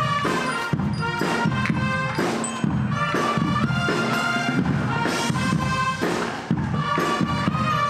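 A college band rehearsing: wind and brass instruments playing held chords over steady drum beats.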